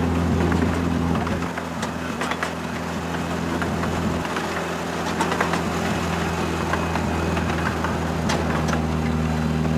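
Miniature railway train on the move: the small locomotive's engine runs with a steady hum, with scattered clicks and rattles from the wheels on the 10.25-inch gauge track.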